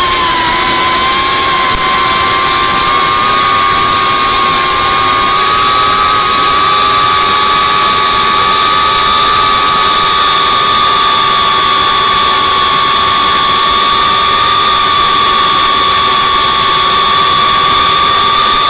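FPV racing quadcopter's electric motors and propellers whining at a steady high pitch, rising slightly over the first few seconds and then holding steady as the drone cruises.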